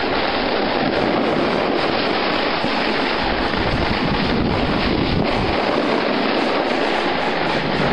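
Steady rushing noise of a snowboard run: wind on the camera microphone and the board sliding over packed snow.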